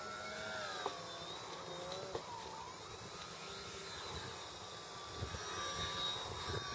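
RC model airplane's motor and propeller whining in flight, its pitch sliding up and down as the plane passes low and manoeuvres, over a low rumble of wind.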